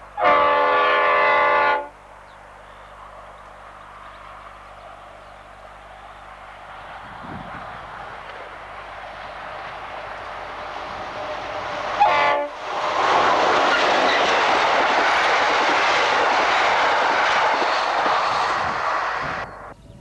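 V/Line diesel locomotive sounding its horn in one blast of about a second and a half. Its engine then grows steadily louder as it approaches. It gives a brief second horn note and passes close by with its train for about seven seconds before the sound cuts off.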